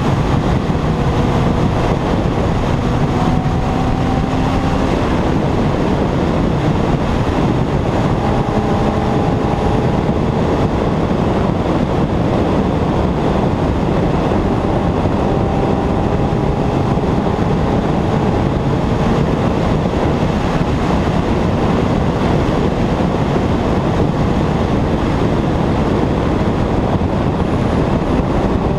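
Steady wind rush on a helmet-mounted camera at highway speed, with the 2001 Yamaha R1's inline-four engine running underneath, its faint tone rising slowly in pitch a few times as the bike pulls through a gear.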